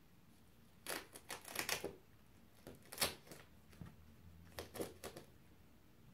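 Sticky tape being pulled up from cardboard by a cat, crackling and crinkling in three short spells: about a second in, at three seconds, and near five seconds.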